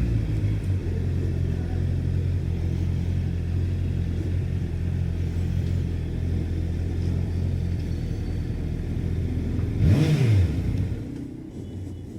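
Honda CBR 650R inline-four engine idling steadily, given one quick throttle blip about ten seconds in, then switched off.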